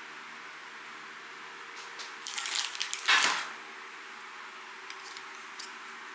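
Mstone Groove T87A mechanical keyboard with silent milky 45g switches being typed on: a quick flurry of keystrokes about two seconds in, loudest near three seconds, then a couple of single key presses.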